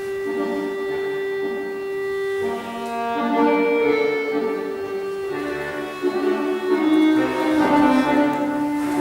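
Instrumental accompaniment music for barre exercises: a slow melody in long held notes.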